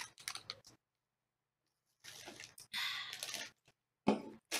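Chip bag crinkling as it is handled, in short uneven bursts, with a few faint clicks near the start.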